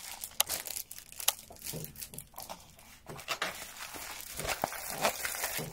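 Plastic and paper packaging crinkling and rustling in the hands as a rolled diamond-painting canvas is unwrapped, with irregular sharp crackles.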